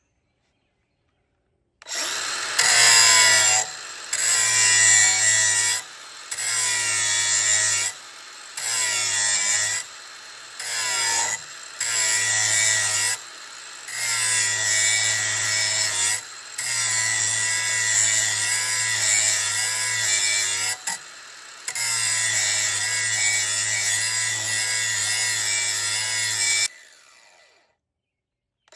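A grinder's wheel grinding the cutting edge of a John Deere zero-turn mower blade held in a vise, in about ten passes of one to five seconds with short dips between. It starts about two seconds in and stops about two seconds before the end.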